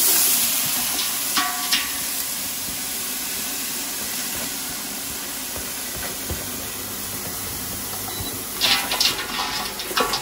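Chopped onions sizzling in hot oil in a stainless steel stockpot: a loud hiss that starts suddenly as they go in and slowly eases. Near the end a wooden spoon scrapes and clicks as the onions are stirred.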